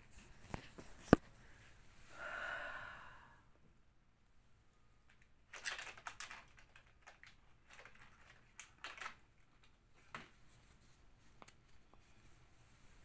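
Short scratchy scrapes of a stiff brush working thick acrylic paint on canvas, among sharp taps and knocks, the loudest a little after a second in. A short breathy hiss comes about two seconds in.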